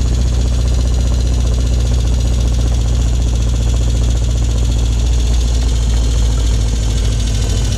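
Motorcycle-and-sidecar engine running steadily under way, with a steady hiss of wind and road noise; the engine note turns slightly rougher after about five seconds.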